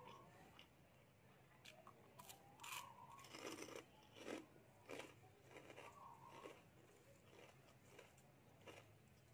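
Quiet, crisp crunching of food being bitten and chewed, with a run of loud crunches in the middle.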